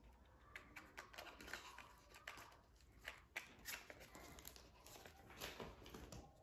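Faint rustling and flicking of paper banknotes being handled, with scattered small clicks and crinkles from a clear plastic binder envelope.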